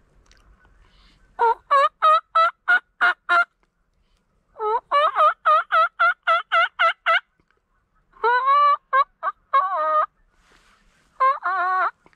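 Extreme CG mouth diaphragm turkey call, blown to imitate a hen wild turkey's yelping. There are two runs of quick, evenly spaced yelps, then a few longer, wavering notes in short groups.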